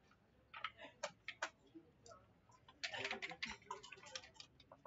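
Backgammon checkers and dice clicking as they are handled on the board and in the dice cup. A few separate clicks come about a second in, then a dense run of rapid clicks from about three seconds in.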